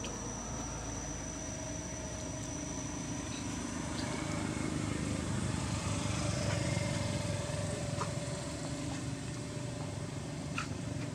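Steady low hum of a distant motor vehicle, growing slightly louder from about four seconds in. A thin, steady high tone runs through the first four seconds.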